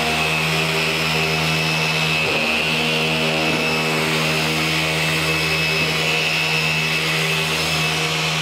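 Electric car polisher (machine buffer) running steadily with its pad on a truck hood, cutting oxidized single-stage paint with compound: a steady motor hum and whine whose pitch dips briefly a few times.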